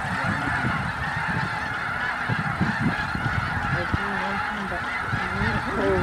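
A huge flock of snow geese calling all at once: countless overlapping honks blending into a steady, unbroken din.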